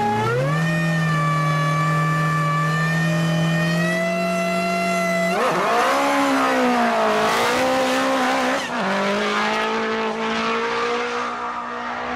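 Pilbeam SR20 hillclimb race car's engine held at high revs on the start line, then launching about five seconds in with a burst of tyre noise from wheelspin. The engine pulls hard and changes up once about three seconds later, then fades as the car goes away.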